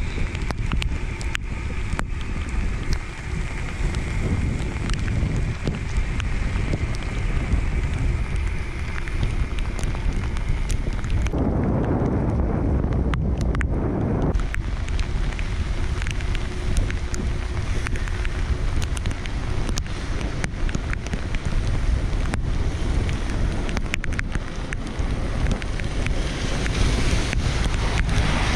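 Rain falling with wind buffeting the microphone, the sharp ticks of drops scattered throughout. Near the end a car passes on the wet road.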